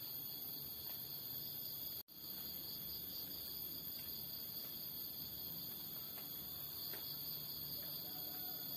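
Steady high-pitched chorus of insects in dawn countryside, with a momentary dropout in the sound about two seconds in.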